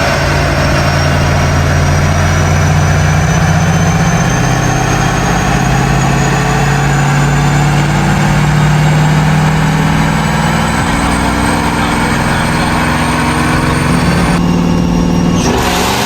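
Car engine running on a Dynojet AWD chassis dyno, its note and a thin high whine, typical of the spinning rollers and drivetrain, climbing slowly and steadily in pitch. The sound changes abruptly about a second and a half before the end.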